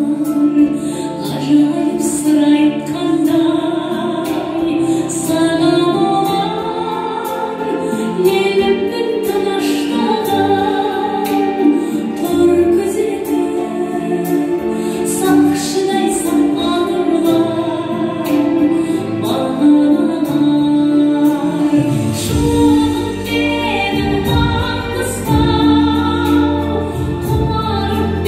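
A song plays: a female voice singing over instrumental backing, with a heavier bass part coming in about 22 seconds in.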